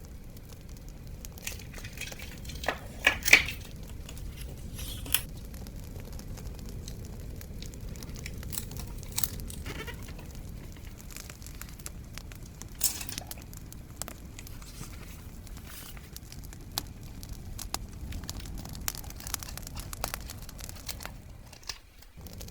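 Paper crinkling and rustling as it is handled, with a few louder crinkles, over a bonfire crackling steadily with scattered sharp pops. The sound dips briefly near the end.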